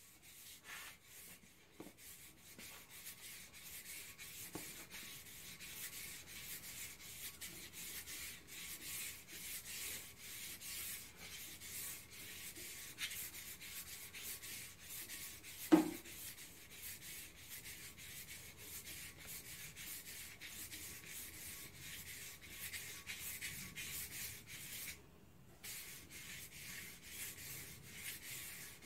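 Sanding sponge rubbing on the primed rim of a spoked wheel as it is turned by hand, a quick run of short scratchy strokes. A single sharp knock a little past halfway is the loudest sound.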